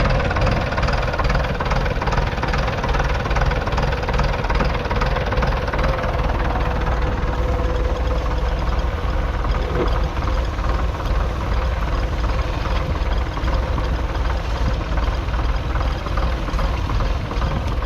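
1951 Nuffield Universal DM4 tractor's 3.4-litre four-cylinder diesel engine running steadily.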